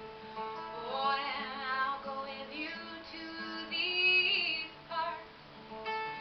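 A woman singing with a strummed acoustic guitar, her loudest held note coming about four seconds in.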